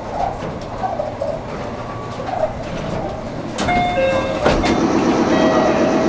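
Meitetsu electric train sounds. A little past halfway there is a short ringing tone, then the train's running noise grows louder and holds steady.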